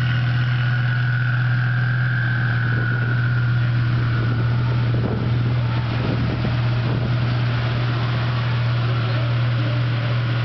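Twin-turbo Lamborghini Gallardo V10 idling steadily with a constant low hum and no revving.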